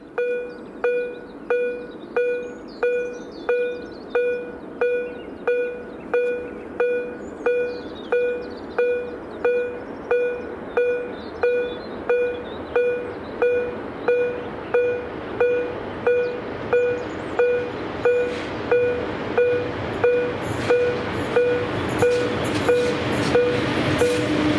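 Level-crossing warning bell (a DEPK-08 electronic crossing signal) dinging steadily at about one and a half strikes a second. From about 18 seconds in, a freight train's rumble rises under it as an ET22 electric locomotive hauling open wagons reaches the crossing near the end.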